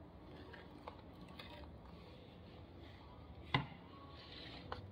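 Quiet room noise with a few light clicks and knocks from subwoofers being handled, the loudest a sharp knock about three and a half seconds in.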